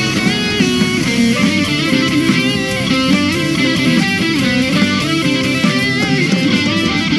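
Live band music led by electric guitar with bending notes, over bass guitar.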